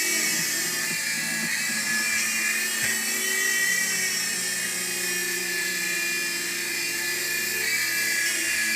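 Small electric remote-control helicopter in flight: a steady high-pitched whine from its motor and rotors, wavering slightly in pitch.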